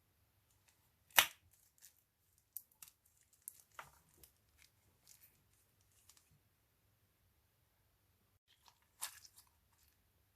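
Slime being handled and mixed with add-ins: scattered sharp snaps and crackles, with a loud snap about a second in and a cluster of crackles near the end.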